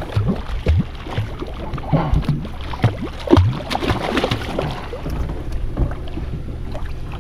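Small boat's outboard motor running low and steady while water splashes and slaps irregularly around the hull.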